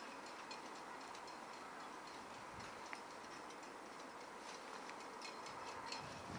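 Faint steady hiss with a scatter of light, sharp high-pitched ticks coming in small irregular clusters.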